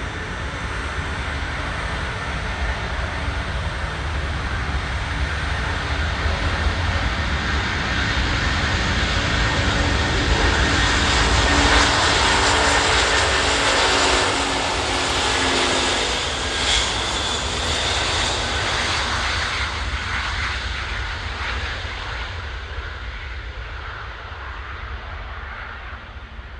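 Antonov An-124 Ruslan's four Lotarev D-18T turbofan engines at takeoff power during the takeoff roll. The roar builds to its loudest about halfway through as the aircraft passes, its whine dropping slightly in pitch, then fades away.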